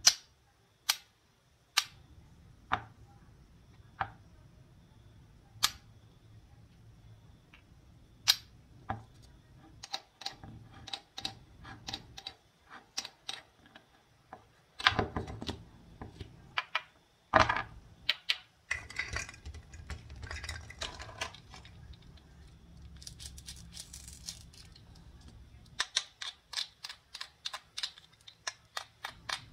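Toy play-food pieces and a wooden toy knife clicking and tapping against a wooden cutting board as the toy fruit is handled, pressed together and cut apart. Sharp single clicks come about once a second at first, then busier clicking and scraping, and a fast run of clicks near the end.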